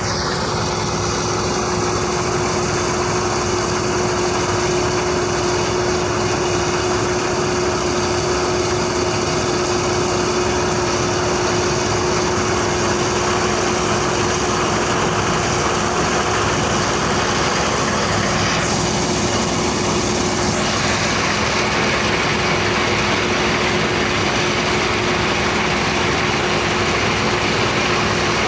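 Deutz-Fahr C 5305 combine harvester running steadily under load while harvesting wheat: a continuous machine drone with a constant hum.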